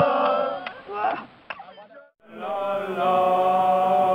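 Men's voices chanting together. A group's held chant fades out about a second in, and after a brief silence a new long chant on a steady note begins.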